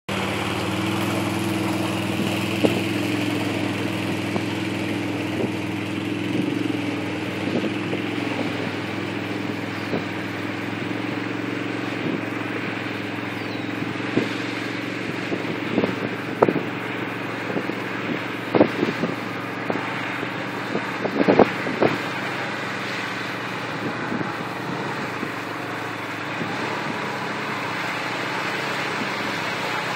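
An ATV engine running steadily close by, with a few sharp knocks a little past the middle.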